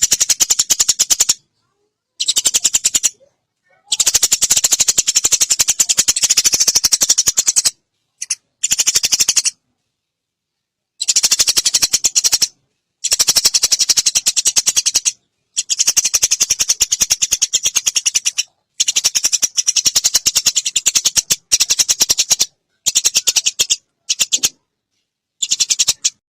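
Recorded songbird's rattling trill: very fast, sharp clicking notes in about a dozen bursts of half a second to four seconds, each cut off into dead silence. It is a mastering track of bird song for caged songbirds to learn from.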